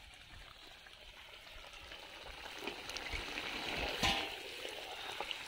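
Kadhai chicken sizzling in the wok as the coriander garnish goes on. The sizzle is faint at first and grows louder, with a brief louder moment about four seconds in.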